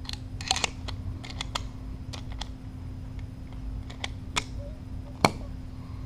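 Scattered small clicks and taps as the two halves of a patio door security bar's chain holder are handled and split apart, ending in two sharper snaps near the end.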